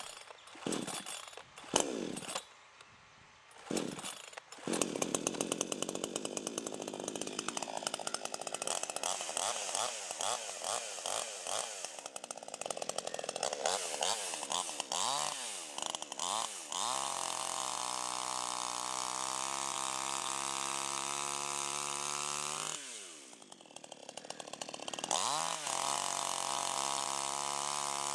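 CD52H two-stroke chainsaw being pull-started: a few short separate bursts, then the engine catches about five seconds in and runs with the revs rising and falling. It then holds steady at high revs, drops away for about two seconds near the end, and is opened up again to the same steady high revs.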